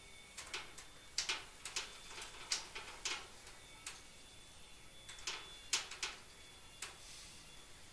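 Stacked wooden tables creaking under a person standing on them: about a dozen sharp, irregularly spaced clicks and creaks, the loudest a little after a second in and near six seconds in.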